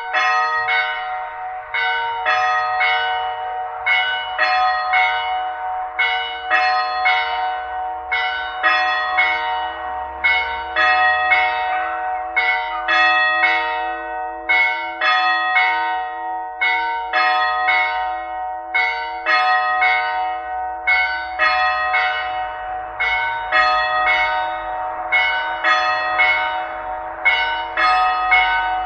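Church bell ringing, struck over and over in a steady, fast rhythm, each stroke's ring carrying into the next.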